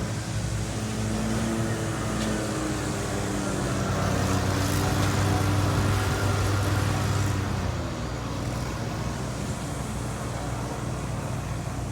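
Engine of a passing motor vehicle running with a steady low hum, growing louder about four seconds in and easing off after about eight seconds.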